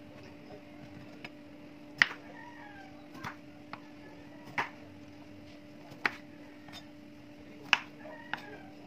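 Kitchen knife cutting calamansi in half on a bamboo cutting board: about seven sharp, irregularly spaced knocks as the blade goes through the fruit and hits the wood, over a steady low hum.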